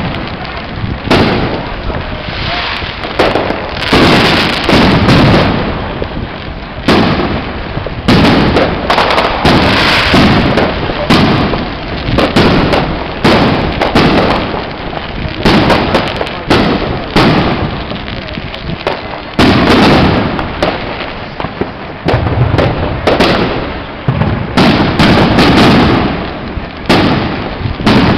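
Aerial fireworks bursting one after another with barely a pause, many bangs overlapping.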